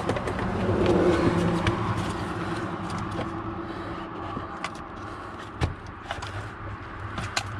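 A motor vehicle running nearby, its sound swelling about a second in and slowly fading, with a few sharp clicks and knocks from wiring and plastic trim being handled.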